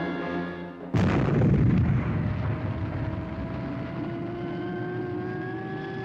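A brass music chord ends, then about a second in a sudden loud rocket blast starts. It settles into a steady roar with a whine that climbs slowly in pitch: the sound effect of a spaceship's rocket engines at launch.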